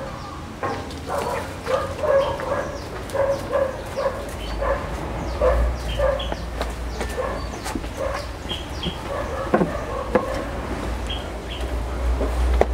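A dog barking repeatedly, short barks about once a second.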